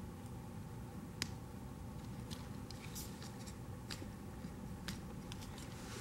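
Scattered small sharp clicks and scrapes of a bent paper-clip pin tool being worked into a plastic wiring-harness connector to release the terminal's locking pins, over steady low background noise.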